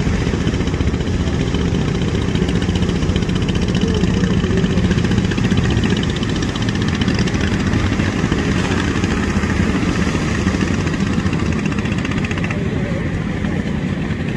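A small engine running steadily at an even pace.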